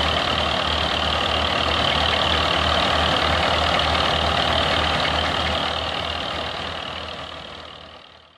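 Belarus tractor's diesel engine running steadily under load, belt-driving a grain thresher, with a regular low beat from the engine under the thresher's steady rushing drum noise. The sound fades out over the last few seconds.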